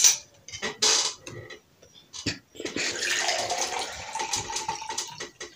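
A metal spoon clicks a few times against a bowl, then, from about three seconds in, boiled orange-peel water is poured from the bowl into a drinking glass with a steady trickling.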